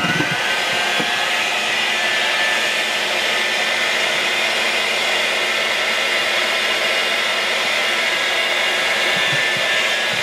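Old electric hand mixer running steadily, its beaters whipping stiff egg whites in a stainless steel bowl as the yolks are added: a steady motor whine over a rushing hiss.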